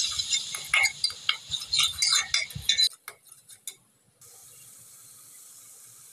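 A metal spatula scraping and clicking against a metal karahi as a spice masala is stirred and fried down, with a sizzling hiss. About three seconds in the sound cuts off abruptly; near the end only a faint steady hiss remains.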